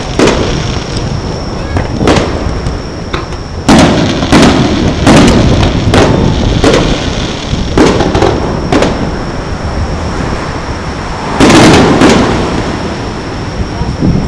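Aerial firework shells bursting: about a dozen booms at irregular spacing, each trailing off in a lingering rumble, with the loudest pair close together near the end.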